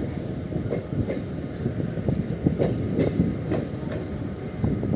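Mumbai local electric train running along the track, heard from beside the coach: a steady low rumble of wheels on rail with frequent, irregular clicks and knocks as the wheels pass over rail joints.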